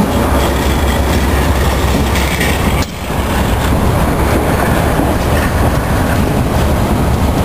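Norfolk Southern freight train passing close by: a locomotive moves off and a line of gondolas and other freight cars rolls past, their steel wheels clattering on the rails with a steady low rumble.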